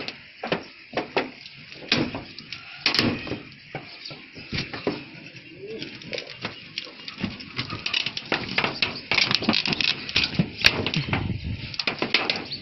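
Irregular knocks, clanks and creaks of rusty corrugated iron roofing sheets being stepped on and handled.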